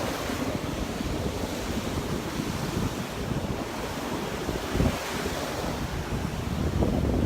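Gulf of Mexico surf washing onto the beach, with wind buffeting the microphone and a stronger gust about five seconds in.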